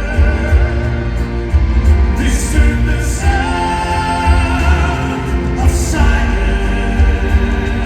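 Live concert music: operatic pop vocals singing long held notes over an amplified band with strong, heavy bass.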